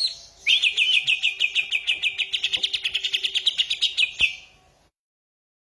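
A songbird singing: a short call, then a fast, even trill of rapidly repeated high notes, about nine a second, lasting nearly four seconds. A single sharp click sounds just as the trill ends.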